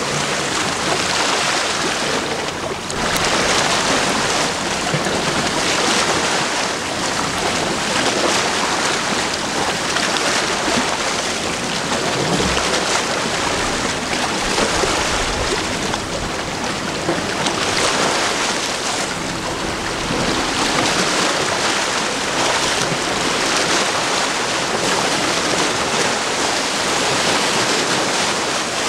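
Wind and choppy water: a steady rushing hiss that swells and eases every few seconds.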